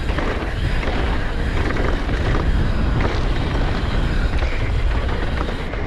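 Wind buffeting the camera microphone and knobby tyres rolling over a dirt trail as a downhill mountain bike descends at speed, with light rattling from the bike over the bumps.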